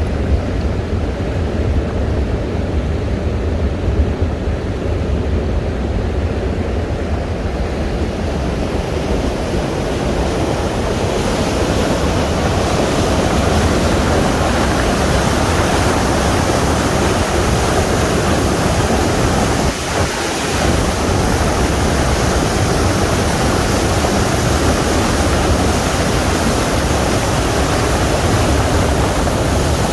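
Floodwater of the Arkansas River pouring over a headgate spillway: a steady rush of water that grows fuller and brighter from about ten seconds in, with a brief dip about twenty seconds in.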